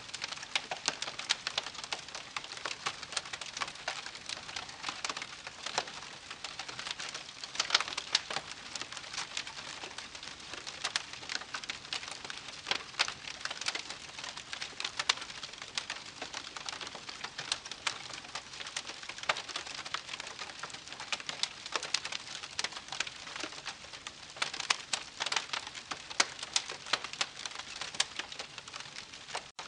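Wood campfire crackling: a steady hiss with dense, irregular pops and snaps.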